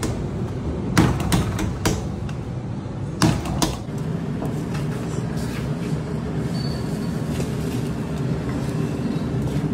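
Several sharp knocks and slaps in the first four seconds, typical of stuffed kulcha dough being pressed and slapped on a counter. A steady low rumble of the busy stall runs underneath.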